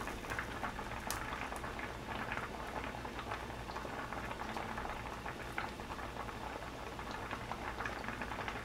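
A pot of seafood soybean paste stew (haemul doenjang-jjigae) boiling, a steady bubbling and crackling, with one light click about a second in.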